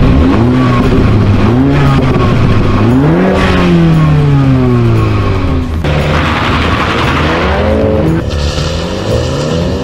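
MINI hatchback engine revving: a few short blips, then one longer rev that climbs and slowly falls away, then a harsher, noisier stretch at higher revs.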